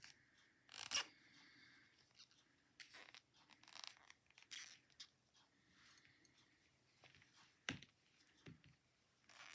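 Faint handling sounds of knitting on double-pointed needles: soft scratchy rustles of yarn and a few light clicks of the needles, the clearest click near the end.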